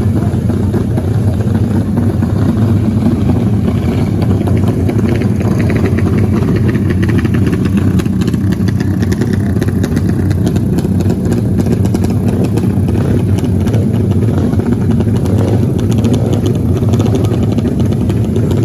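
Dirt bike engine running steadily at a loud, even level for the whole stretch.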